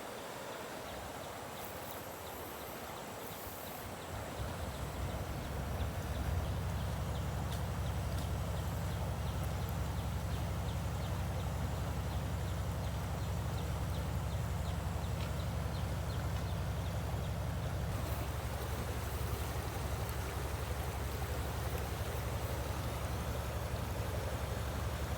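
A small motor starts humming a few seconds in and then runs at a steady low pitch over a continuous rushing hiss of water.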